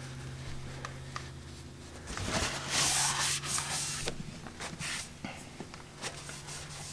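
A shop towel rubbing and wiping inside a freshly honed cast-iron cylinder bore, cleaning out honing slurry, loudest about two to four seconds in, with a few light clicks and knocks.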